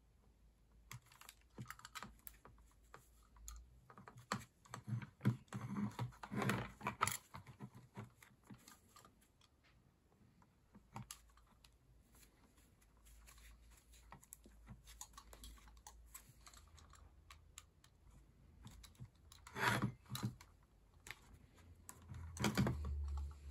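Faint, scattered clicks and scrapes of gloved hands stripping electrical cable insulation with a utility knife and pliers. They are busiest from about four to eight seconds in, with another cluster near twenty seconds and quieter stretches between.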